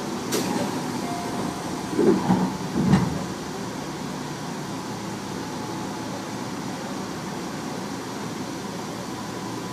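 Tobu 30000 series electric train running between stations, heard from inside the car: a steady rolling noise, with a few louder knocks about two to three seconds in.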